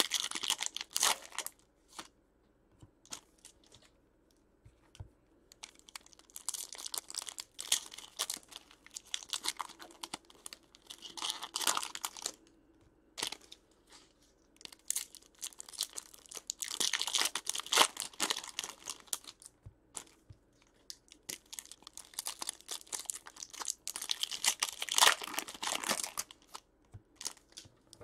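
Crinkly plastic wrapping of trading-card boxes and packs being torn open and crumpled by hand, in four bouts of a few seconds each with quieter gaps between.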